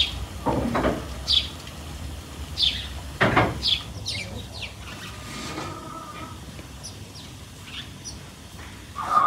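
Birds chirping outdoors in short, high, falling calls scattered throughout, with two dull knocks, one about half a second in and one about three seconds in.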